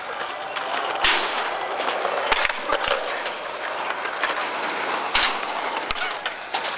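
Skateboard wheels rolling on concrete, with a handful of sharp clacks of boards hitting the ground.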